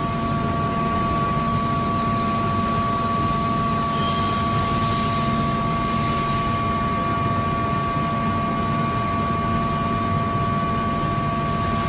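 Steady machinery drone with two constant whining tones over it, even and unbroken, with no hammer strikes.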